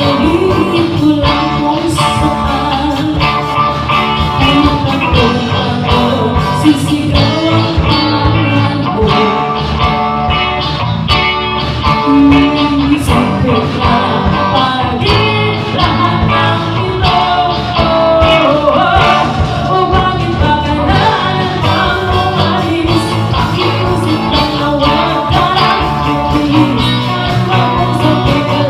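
A band playing a song: a lead singer over guitar, bass and a steady drum beat.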